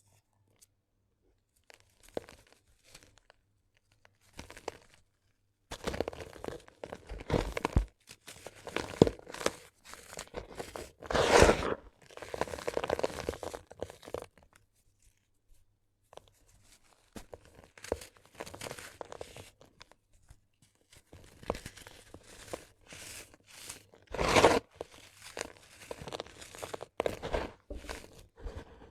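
Gritty sand-cement being crushed and crumbled, giving irregular crunching and crackling. A few scattered crunches come first, then denser crunching from about six seconds in, with the loudest crunches near the middle and about three-quarters of the way through.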